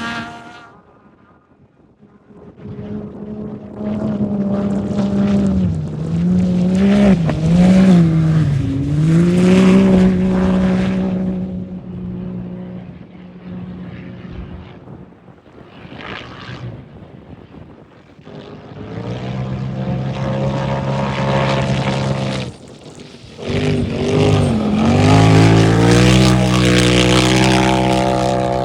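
Turbo UTV race engines passing at speed, the pitch dipping and climbing again as the throttle is lifted and reapplied. One vehicle builds up about three seconds in and fades away, then another comes through from about nineteen seconds, with a brief lift near twenty-three seconds.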